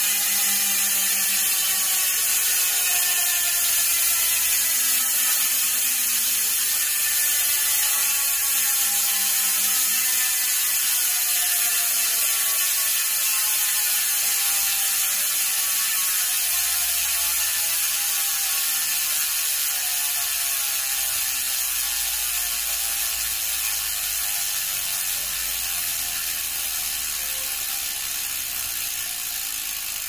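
Genova Maverick Big Dipper rear hub with a six-pawl freehub, freewheeling as the rear wheel coasts: a loud, rapid buzz of pawl clicks like crickets. It slowly falls in pitch and fades as the wheel winds down.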